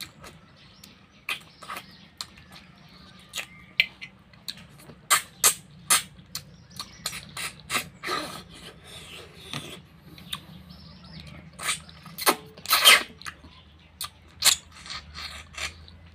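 Close-up mouth sounds of sucking cooked snails out of their shells: a quick run of irregular short, wet sucks and slurps with chewing between them, the loudest near the end.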